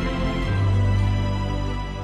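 Background music of held, sustained notes. A deep bass note comes in about half a second in, and the music begins to fade out near the end.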